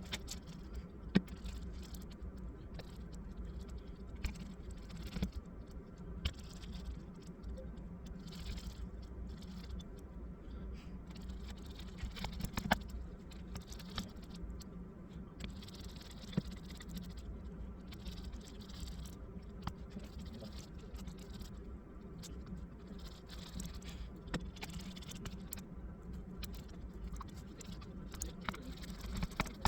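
Scattered light clicks, taps and scrapes of small plastic and metal laptop parts being handled during a repair, over a steady low hum.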